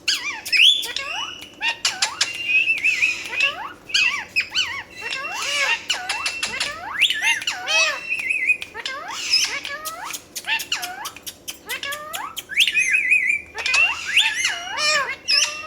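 Pet parrot chirping and calling almost without a break: quick rising and falling whistled notes, chirps and clicks in rapid succession.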